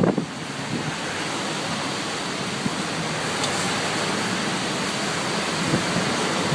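Steady hiss of wind-driven rain in a storm, rising slightly toward the end.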